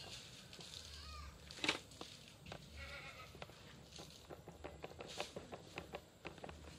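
Light clicks and knocks from a WPL D12 RC mini pickup tipping over onto its side on a log-and-plank ramp, with one sharper knock about two seconds in. An animal calls a couple of times in the background early on.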